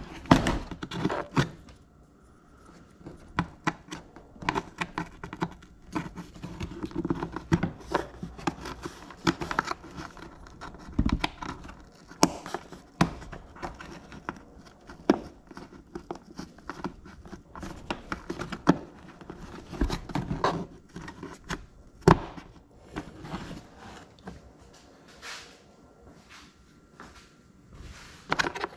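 Irregular clicks, knocks and a few louder thunks of windshield clamps and clips being handled and fitted by hand.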